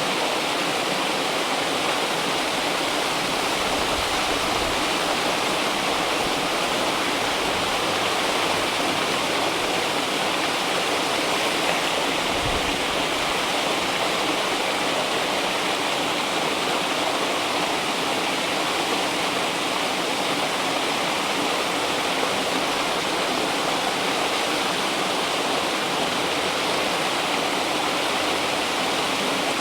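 River water flowing and rushing in a steady, unbroken sound, like a stream running over rocks.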